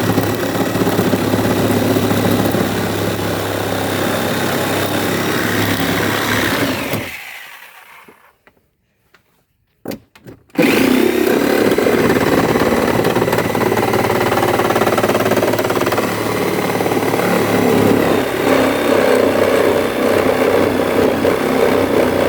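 Handheld electric power tool running and cutting, with a steady high whine; it winds down about seven seconds in and starts up again a few seconds later.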